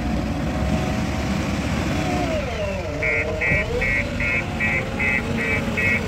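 JCB 3DX backhoe loader's diesel engine running, its note dipping and then rising again about halfway through. Then a reversing alarm starts beeping steadily, about two and a half beeps a second.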